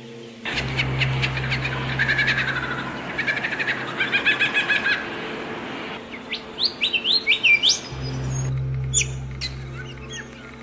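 Several songbirds singing: rapid chirping trills, then a run of quick rising whistled notes about two-thirds of the way through. A low steady hum sounds underneath for most of the time.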